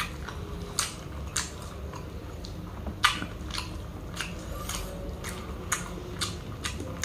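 Close-miked chewing of a mouthful of spicy chicken sisig: wet mouth clicks and smacks at an uneven pace, about one or two a second, the loudest about three seconds in.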